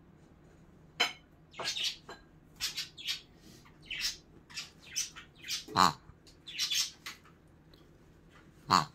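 A pink rubber pig squeaky toy is squeezed by hand again and again, giving about a dozen short, irregular squeaks. Two louder ones come near the middle and at the end.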